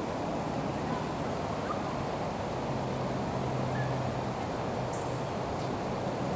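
Steady outdoor background noise: a low mechanical hum that drops a little in pitch partway through, with a few faint bird chirps.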